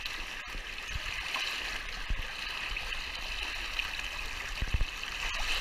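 Waterfall water rushing steadily, with a couple of dull low bumps shortly before the end.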